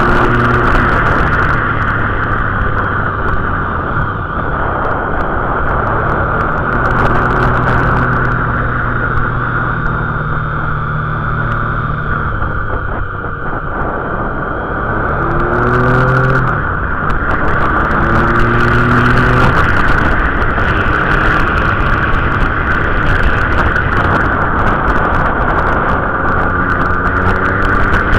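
Motorcycle engine pulling hard uphill, its pitch rising through the revs and dropping back at gear changes several times, under a steady rush of wind over the microphone.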